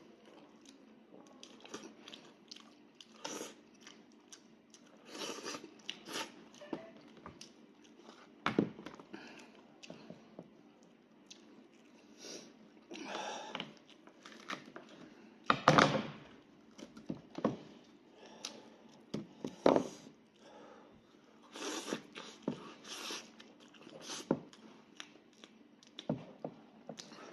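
Close-up mukbang eating of a sheep's head: chewing, crunching and tearing at the meat, with irregular sharp smacks and clicks, the loudest about 16 seconds in.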